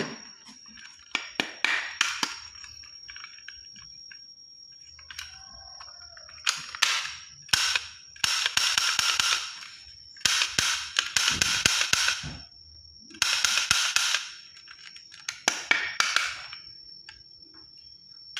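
Toy guns making firing sounds: a few sharp clicks, then several bursts of rapid shooting noise, each lasting one to two seconds, with a thin steady high whine underneath.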